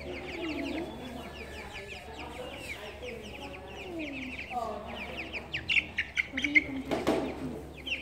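Young chickens peeping with many rapid, high, falling chirps, getting louder near the end, when a brief burst of wing flapping comes about seven seconds in.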